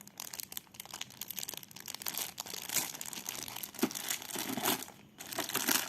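Packaging crinkling and rustling in irregular bursts, with small clicks and knocks, as the contents of a new walkie-talkie box are unpacked; it grows louder near the end.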